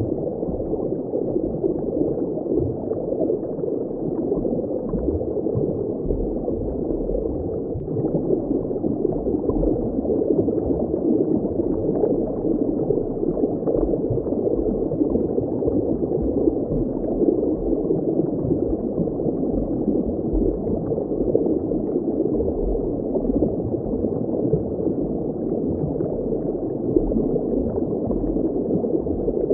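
Steady, muffled bubbling and gurgling of water, dull with nothing high-pitched, over a low rumble.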